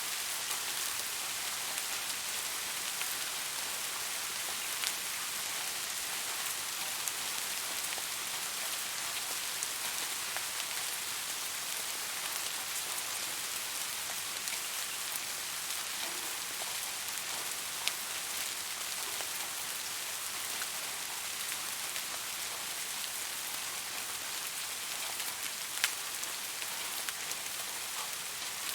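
Steady rain falling, a constant hiss with occasional distinct drops ticking close by.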